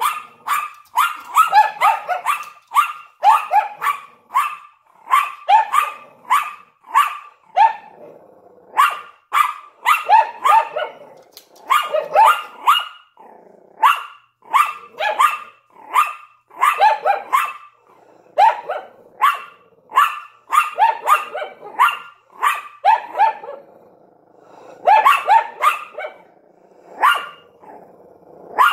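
A Lhasa Apso and a Yorkshire Terrier barking, a long series of high, sharp barks about one or two a second, in runs broken by short pauses.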